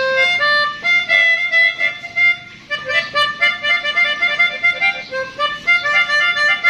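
Pianika (melodica) playing a quick melody of short, separate notes, imitating the 'telolet basuri' bus horn tune.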